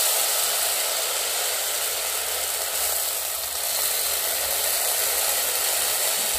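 Rava idli batter sizzling with a steady hiss as it is ladled into a hot, oiled iron kadhai.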